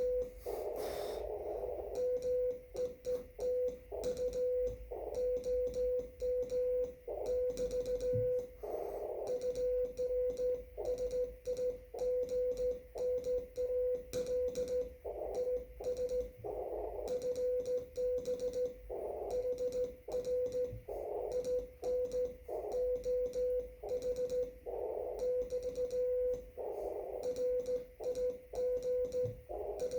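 Morse code (CW) on an amateur radio transceiver on the 30-metre band: a single steady tone keyed on and off in rapid dots and dashes throughout, with a hiss of band noise coming up in the gaps between characters.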